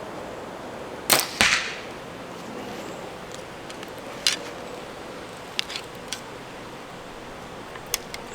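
Compound bow shot: a sharp snap of the string about a second in, followed a fraction of a second later by the arrow striking the target. A few faint clicks come afterwards.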